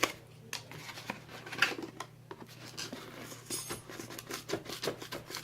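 A knife cutting and scraping at a sealed box whose pull tab shreds, heard as a run of irregular scratches, rasps and small knocks.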